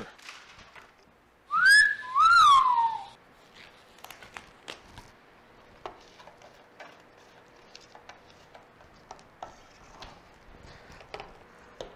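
A wolf whistle about two seconds in: a short rising whistle, then a second that rises and falls away. After it, faint clicks and taps as gloved hands work the cap of a metal can of paint stripper.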